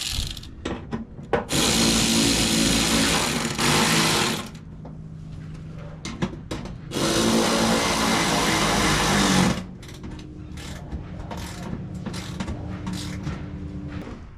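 Power drill running in two spells of about two to three seconds, driving in the bolts that hold a car's quarter-window glass, with small clicks and handling noises between and after.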